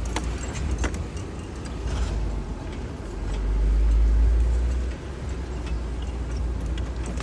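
Vehicle crawling over a rocky trail, heard from inside: a low engine and tyre rumble that swells for a second or two just after the middle, with small rattles and clicks of loose things jostled by the bumps.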